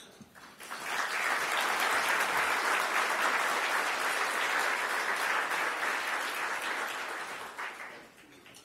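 Audience applauding: the clapping builds within the first second, holds steady, then dies away near the end.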